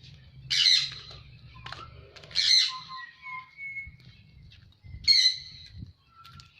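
Birds calling: three loud, harsh squawks about two seconds apart, with clear whistled notes between them.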